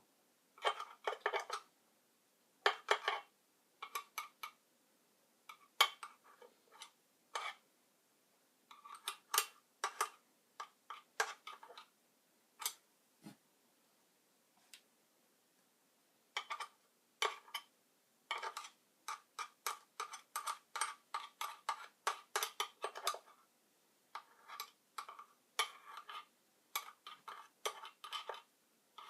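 Irregular runs of small, sharp metallic clicks and clinks from tools and small parts being handled, with short quiet gaps between the runs.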